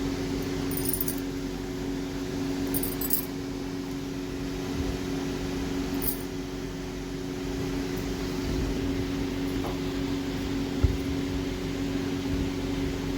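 Electric fan motor humming steadily, with one short low thump about eleven seconds in.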